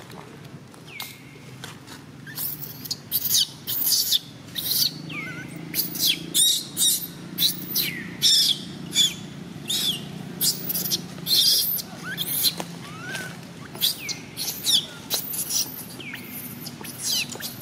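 A rapid series of short, high-pitched chirping calls, several a second, some sliding down in pitch, over a steady low hum.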